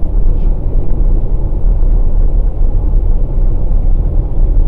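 Steady low rumble of road and tyre noise heard inside the cabin of a 2020 Passat Variant 1.6 TDI driving on a wet road.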